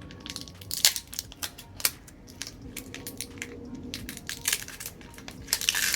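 Handling of a tyre plug repair kit: a run of sharp clicks and small knocks as its metal tools and plug strips are taken out and readied, with a louder rustle just before the end.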